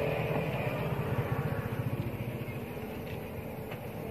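Motor vehicle engine running with a low, rapidly pulsing rumble that dies away after about two seconds, as of a vehicle passing on the road.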